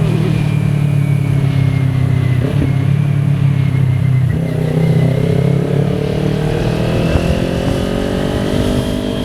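Kawasaki Ninja 400's parallel-twin engine running while ridden. It breaks briefly about two and a half seconds in and again just past four seconds, then rises steadily in pitch as the bike accelerates.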